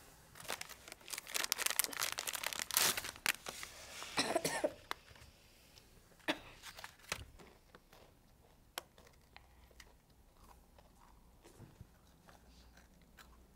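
Plastic wrapper of a packet of Emco nut muesli biscuits crinkling and tearing as it is opened, for about four seconds. Then a few sharp crunches as the biscuits are bitten, and faint chewing.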